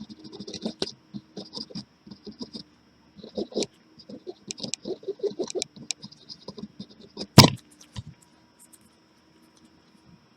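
Quick scratchy rubbing and clicking of small tools being worked on a bench, then a sharp knock about seven seconds in and a lighter one just after. A faint steady hum sits underneath.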